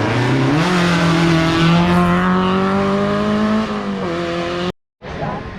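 Rally car engine accelerating hard, its pitch rising steadily, then dropping once at a gear change near the end. The sound then cuts off abruptly and a quieter engine takes over.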